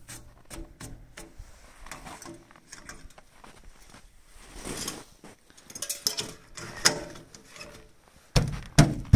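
Scattered metallic knocks, clicks and clunks of parts being handled at the truck's side tank, with two heavier thumps near the end.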